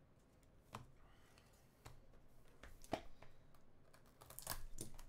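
Faint handling sounds: a few soft taps and clicks, then paper-and-plastic rustling near the end as trading cards and pack wrapping are handled.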